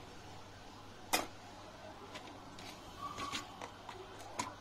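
Sharp metallic clicks of small repair tools such as tweezers being handled and set down on a metal board holder and workbench: one loud click about a second in, a few lighter clicks after three seconds and another near the end, over a low steady hum.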